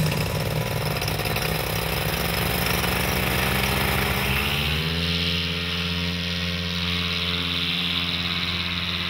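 Air-cooled paramotor engine with its propeller running steadily, the pitch rising a little about halfway through.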